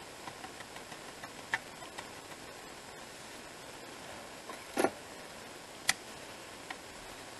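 A plastic craft tray being handled on the desk: light scattered clicks and taps, a louder knock just before five seconds in and a sharp click about a second later, over a steady faint hiss.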